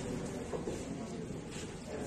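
Indistinct murmur of people talking in the background, with no clear words.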